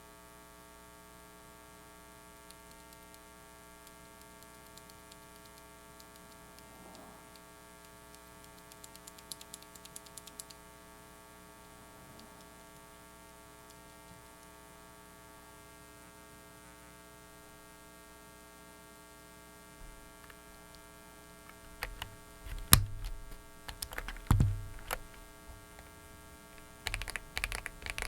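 Steady electrical hum and hiss from a faulty microphone fills most of the stretch, with a few faint key clicks about ten seconds in. From about twenty seconds in, mechanical keyboard keys are pressed, with a couple of louder thumps.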